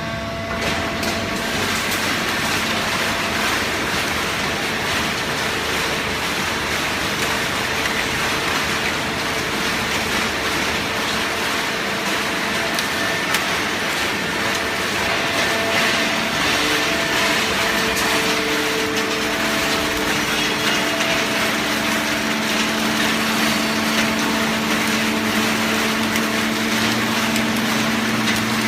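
Horizontal hydraulic cardboard baling press running: a steady, dense mechanical din with low hum tones, one of which grows stronger after about twenty seconds.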